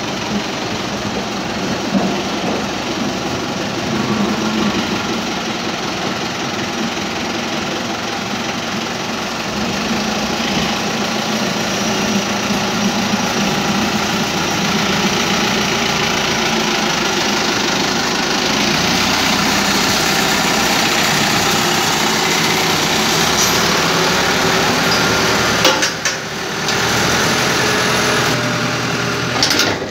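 Farm tractor's diesel engine running steadily as the tractor drives its front-loader bucket through manure. It grows a little louder partway through and dips briefly twice near the end.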